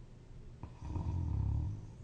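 One loud snore, lasting about a second and starting a little after half a second in with a brief click, low and rumbling.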